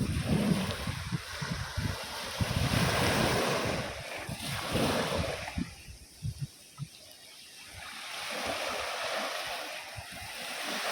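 Sea waves breaking and washing up the shore, the rush swelling, fading about six seconds in, then building again near the end. Wind buffets the microphone with low rumbles in the first half.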